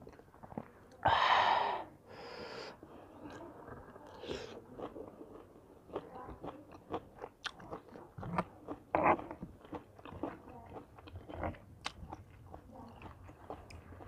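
Close-miked chewing and biting of a spicy mixed-seafood salad with sweet corn, with many small clicks. A loud, breathy burst about a second in, and a shorter one about nine seconds in.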